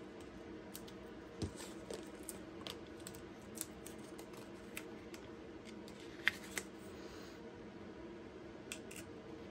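Faint, scattered small clicks and paper rustles of cardstock being handled and pressed down as foam adhesive dots are stuck onto a card panel, the sharpest click about six seconds in. A faint steady hum runs underneath.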